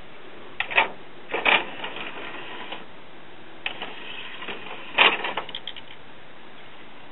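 Motorised CD tray of a Denon DN-T620 CD/cassette deck opening and then closing: each time a few clicks, a short mechanical whir and a clunk as it reaches the end of travel, the loudest clunk about five seconds in as the tray closes, followed by a few light clicks. The tray is cycling on its own again after its drive gear, which had slipped out of time, was reset.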